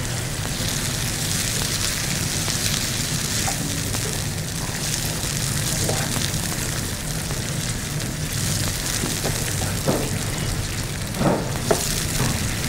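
Grated potato sizzling steadily in a hot nonstick frying pan, stirred with a spatula, with a few brief knocks of the spatula against the pan near the end.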